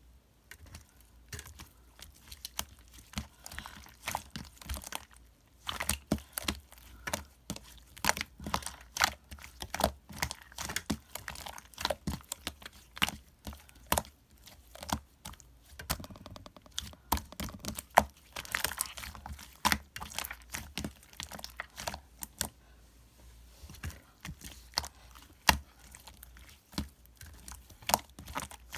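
Many short, sharp clicks and taps in irregular runs, sparse at first, then dense, thinning out again about twenty-three seconds in.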